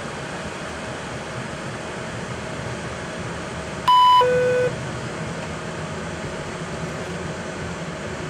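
Steady engine and airflow noise in an Airbus A220 cockpit as its Pratt & Whitney geared turbofans come up to takeoff thrust at the start of the takeoff roll. About four seconds in this is broken by a loud two-tone electronic chime, a higher note followed by a lower one.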